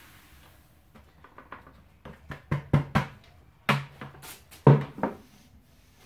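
A run of sharp knocks and clunks from handling an emptied plastic bucket of dry milled malt against the stainless malt pipe and setting it down, coming in a few quick clusters with the loudest hits past the middle.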